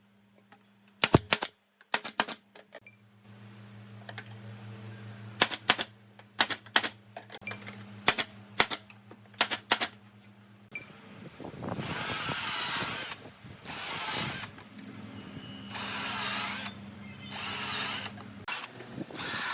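Sharp knocks and clicks, then a power drill running in several short bursts of a second or two, starting about halfway through.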